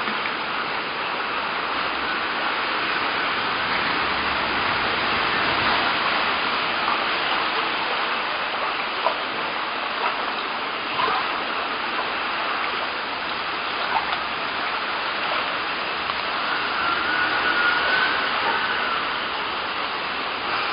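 Steady rushing of water from the flood, with a few faint clicks along the way.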